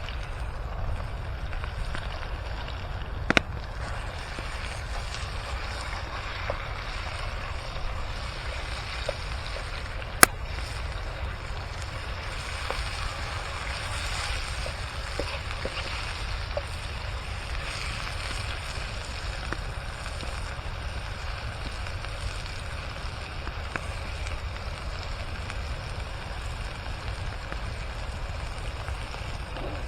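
Steady rushing of a waterfall, with a couple of sharp pops from the campfire, one about three seconds in and one about ten seconds in.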